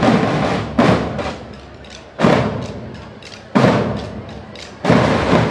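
Girls' marching drum band of side drums, with a bass drum, playing together. Loud massed strokes land about every second and a half, each one dying away, with lighter taps in between.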